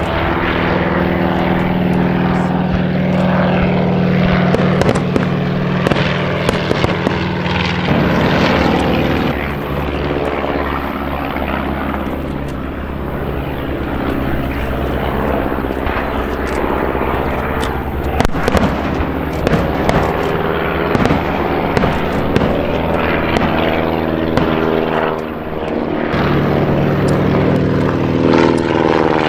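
Piston engines of a First World War replica triplane and biplane flying a mock dogfight: a steady propeller drone whose pitch shifts a few times as the aircraft manoeuvre, with occasional sharp cracks over it.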